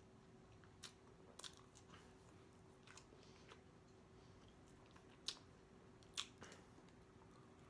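Faint closed-mouth chewing of an oversized bite of taco, with a few short, sharp wet mouth clicks scattered through it, the loudest about five and six seconds in.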